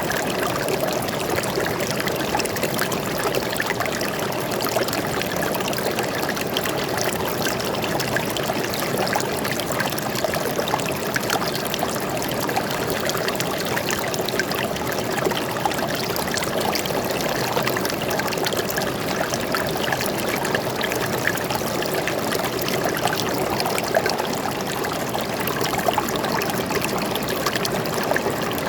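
Forest stream flowing steadily: a continuous rush of water, dotted with many small splashes.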